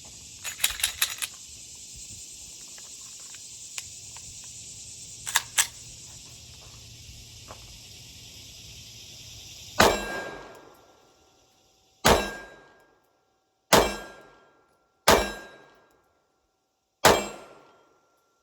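Five shots from a Glock 45 9mm pistol, spaced about one and a half to two seconds apart, each trailed by a short ringing tone. Before them, a few small metallic clicks of gun handling over a steady hiss.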